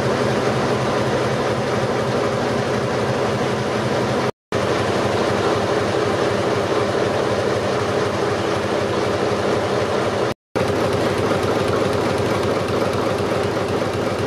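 Vintage stationary engines running with a steady mechanical clatter of moving cranks and rods. The sound breaks off twice for an instant, about four and ten seconds in.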